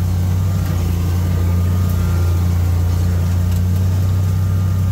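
Steady engine drone of a side-by-side UTV driving slowly through tall grass and brush, heard from the driver's seat; low and even throughout, with no change in pitch.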